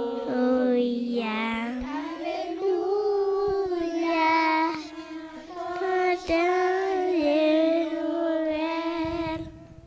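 A group of young children singing a song together in long held notes; the singing ends shortly before the close.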